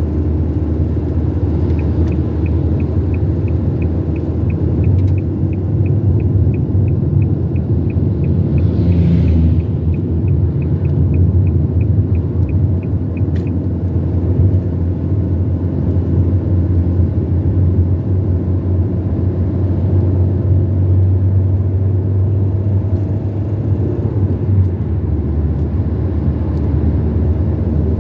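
Car driving along the road: a steady low rumble of engine and road noise. For about the first half a fast regular ticking, roughly three to four a second, runs over it, with a brief hiss a little past the middle of the ticking.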